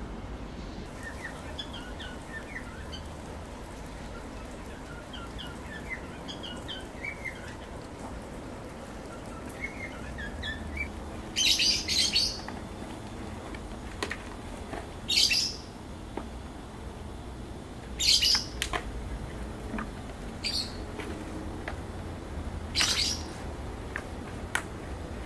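Wild birds calling: soft, high twittering for the first ten seconds or so, then five loud, harsh calls, each about half a second long, coming roughly every three seconds.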